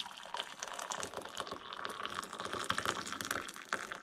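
Just-boiled water pouring from a stainless steel electric kettle into a ceramic mug, a steady splashing stream.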